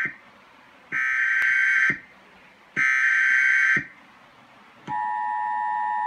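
Emergency Alert System header tones: the end of one data burst, then two more harsh warbling screeches of about a second each, a second apart. About five seconds in, the steady two-tone EAS attention signal begins, announcing the severe thunderstorm warning.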